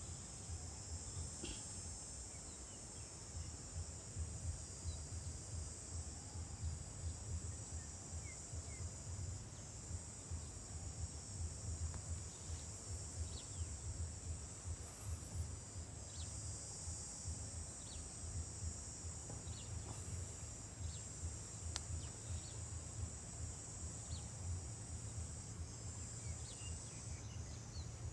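Steady high-pitched insect chorus, a shrill buzzing drone that holds throughout, over a low fluttering rumble, with a few faint short bird chirps scattered through.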